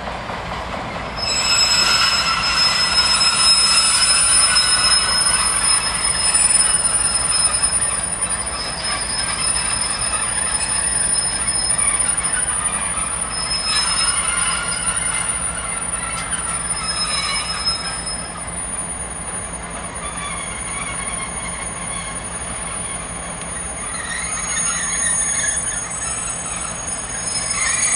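High-pitched metal-on-metal squealing from a rail works train on the track, several shrill tones held together over a low rumble. It starts about a second in, eases off after the middle and swells again near the end.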